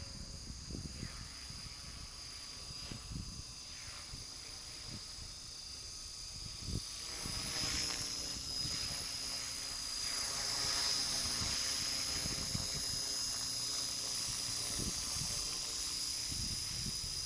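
Align T-Rex 600 radio-controlled helicopter flying overhead: a steady high whine with rotor noise. It grows louder about seven seconds in as the helicopter comes closer.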